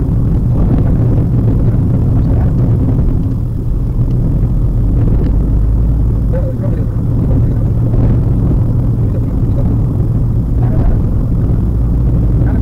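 Steady low road and engine rumble inside the cabin of a moving Maruti Suzuki WagonR.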